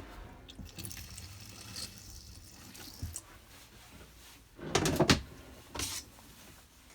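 Water running briefly from a kitchen tap into a small sink, a soft hiss, followed by a few knocks and clatters of fittings being handled, the loudest about five seconds in.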